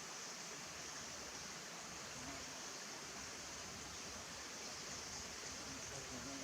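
Steady rushing of river water, an even hiss with no distinct events.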